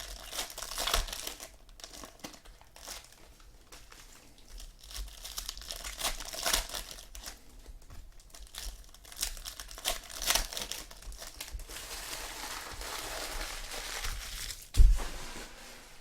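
Trading-card pack wrappers crinkling and tearing as packs are opened, in irregular rustles, with one sharp thump near the end.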